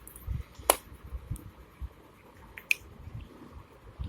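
Small handling noises while yellow colour is added to a bowl of glue: a sharp click about 0.7 s in, another near 2.7 s, with a few faint ticks and soft knocks between.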